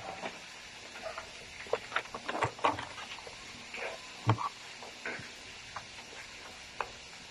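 Sheets of bond paper being handled and folded: scattered crinkles and rustles, with one louder knock about four seconds in.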